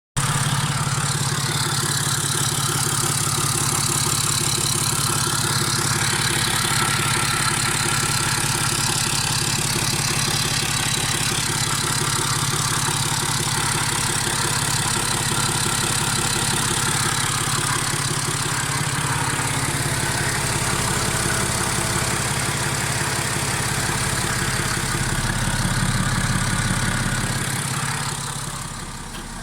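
BMW N57 straight-six turbodiesel idling steadily from cold, with an extraneous noise that the owner hears on a cold engine. The sound drops in level shortly before the end.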